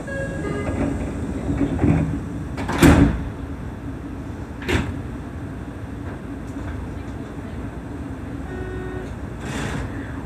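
Seibu 30000 series commuter train standing at a station, heard from the cab, with its doors working. There are brief beeping tones near the start and again near the end, and three short bursts of noise, the loudest about three seconds in.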